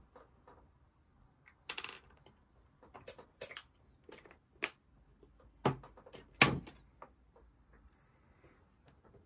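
A series of sharp, irregular clicks and taps from small airsoft pistol parts and tweezers being handled and set down on a work mat, the loudest about six and a half seconds in.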